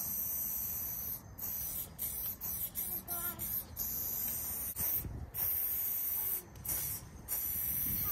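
Aerosol spray paint can hissing as paint is sprayed onto a wall: a string of sprays, each a second or less, broken by short gaps where the nozzle is let go.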